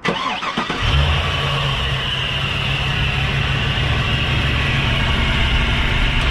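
Chevrolet TrailBlazer SS's 6.0-litre LS2 V8 starting, catching under a second in, then idling steadily. A steady high rubbing whine from the accessory belt drive sounds over it, which the owner traces to a stuck belt tensioner.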